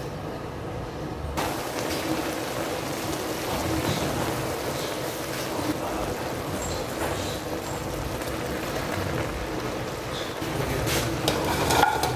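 Noodles sizzling steadily in a hot wok as they fry in their sauce. Near the end come a few clicks and clatters as ingredients are tipped into the pan.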